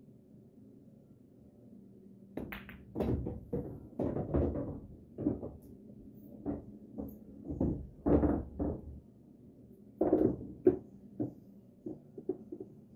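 A pool shot on a Valley coin-operated bar table: about two and a half seconds in, the cue strikes and the balls knock together as the 7 ball is pocketed. A run of sharp knocks and thunks follows over the next several seconds, then a few lighter taps.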